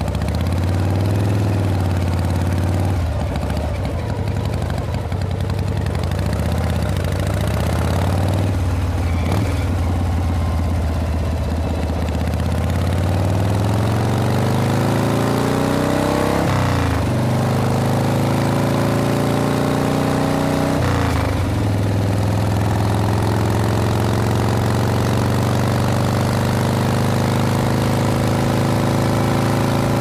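Harley-Davidson Panhead V-twin motorcycle engine under way. For the first part it runs at low, varying revs. About halfway through the engine note climbs, drops sharply as the bike shifts up, then climbs and drops again with a second shift, and afterwards holds a steady cruise.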